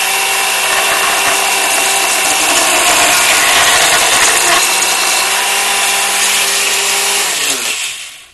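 Porta-Band band saw running and cutting through a short piece of 1/2-inch PVC pipe with a steady motor hum and blade rasp. Near the end the saw is switched off and its motor winds down with a falling pitch.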